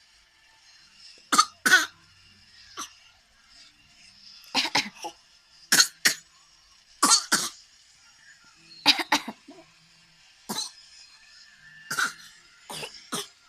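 Someone coughing over and over: short coughs, often two at a time, coming every second or two.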